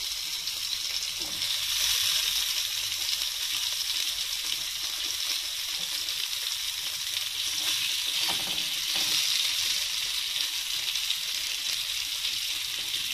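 Marinated mutton chops sizzling steadily on a hot, lightly oiled grill pan.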